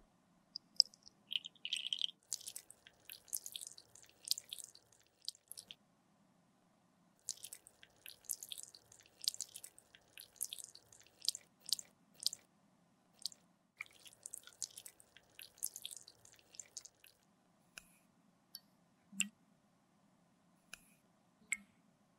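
Melted lipstick being poured into plastic lipstick molds: soft, wet, sticky crackling clicks in dense clusters, thinning to a few separate clicks near the end.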